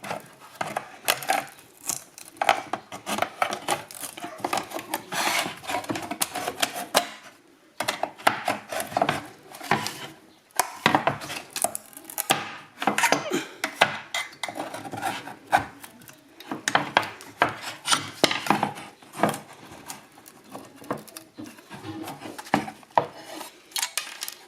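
Hand tools clicking, clinking and scraping against the opened BMW DME's casing and circuit board while a part is pried and pushed out, irregular and continuous with a brief pause about seven seconds in.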